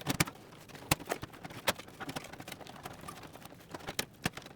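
Power supply unit being wiggled and pushed into a PC case's PSU bay: irregular clicks and knocks of its housing against the case, with a few sharp knocks in the first two seconds.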